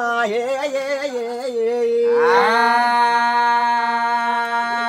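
Man singing a Telugu devotional folk song over a steady low drone. About two seconds in, his voice slides up into one long held high note that lasts until near the end.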